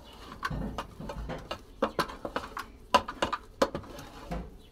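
Stiff ugali (maize-flour porridge) being stirred and mashed in a pot: the utensil knocks irregularly against the pot, about two knocks a second, with a few dull thumps.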